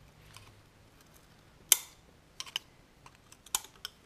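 Small, sharp metallic clicks of a thin flathead screwdriver prying the fork seal's retaining clip out of a Yamaha YZ426F fork's outer tube, about half a dozen scattered clicks with the loudest a little under two seconds in.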